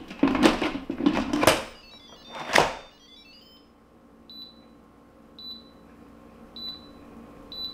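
An Instant Pot Max pressure canner's lid clunks and scrapes as it is set on and twisted shut. Then the control panel gives four short, high beeps about a second apart as the program is keyed in.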